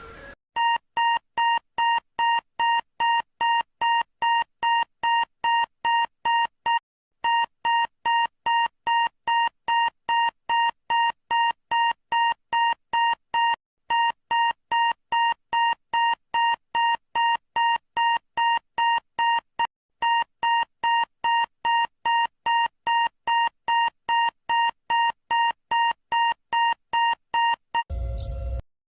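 Electronic emergency alert alarm beeping: one high, steady tone pulsed about twice a second, with two brief breaks in the rhythm. It stops shortly before the end.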